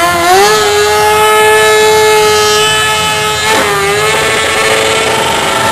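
A vehicle engine held at high revs with a steady pitch. About three and a half seconds in it dips briefly, then settles at a higher steady pitch.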